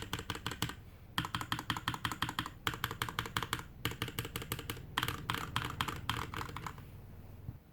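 Typing on a GK61X mechanical keyboard with Tecsee Blue Velvet linear switches, DSA keycaps and a stainless steel plate, sitting on a bare desk. Quick runs of keystrokes come with brief pauses between them, and the typing stops about a second before the end.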